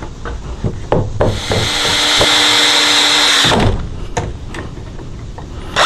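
A few knocks of wood and tools being handled, then a DeWalt cordless drill runs with a steady whine for about two seconds and stops abruptly. After a couple of clicks it starts again right at the end.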